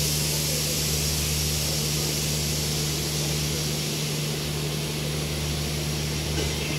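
Heavy monsoon rain falling steadily, an even hiss, with a constant low hum underneath.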